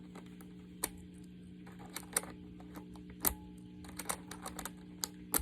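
Irregular sharp plastic clicks and snaps of keycaps being worked off a computer keyboard with a wire keycap puller, about ten in all, a few in quick pairs. A steady low hum runs underneath.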